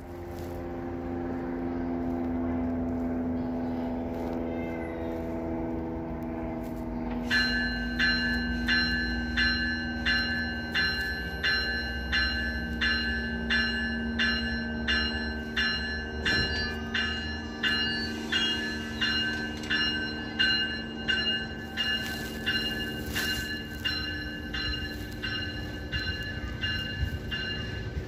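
GO Transit commuter train pulling out: the diesel locomotive's engine runs steadily, and about seven seconds in the locomotive's bell starts ringing, about one and a half strokes a second, going on as the bilevel coaches roll past.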